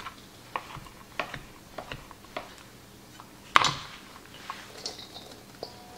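Chef's knife dicing provolone cheese on a plastic cutting board: a run of light knife taps about two a second, then a single louder knock a little past halfway as the knife is laid down on the board, followed by a few soft ticks of the diced cheese being gathered by hand.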